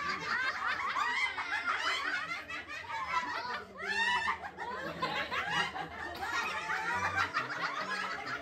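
A group of people laughing together, several voices overlapping throughout.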